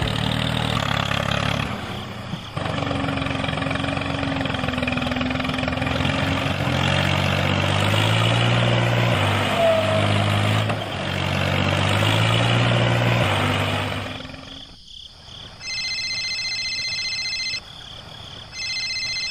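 Tractor engine revving up and down over and over, straining while the tractor is stuck under load with its wheels dug into sand, then cutting out about 14 seconds in. After that, an electronic ringing tone sounds twice, about two seconds each.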